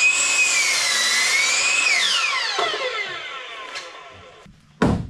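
Electric power tool motor running with a high whine that sags in pitch briefly, then is released and winds down over about a second and a half. A sharp knock comes near the end.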